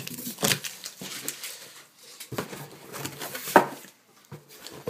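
Cardboard box and packaging handled by hand: irregular scraping, rustling and light knocks, with one sharper knock about three and a half seconds in.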